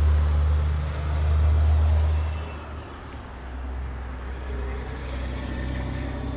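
Dodge Ram's Cummins 24-valve turbo-diesel inline-six idling steadily with a low, even hum, heard at the open hood. It is louder for the first couple of seconds, then drops back and carries on at a lower level.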